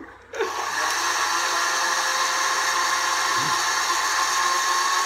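Electric blender switched on about half a second in, its motor then running steadily at one pitch while blending a protein shake.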